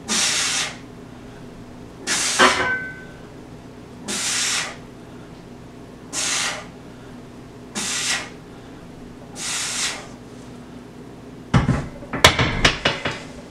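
A man breathing hard through a set of bench presses, one forceful hissing exhalation with each rep, six in all about two seconds apart. Near the end the loaded barbell is set back on the steel rack uprights with a sharp clank and a rattle of plates.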